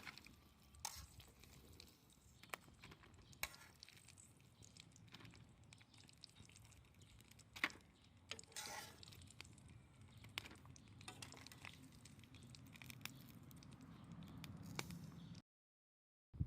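Faint scattered crackles and clicks from a wood campfire. The sound drops out completely for about a second near the end.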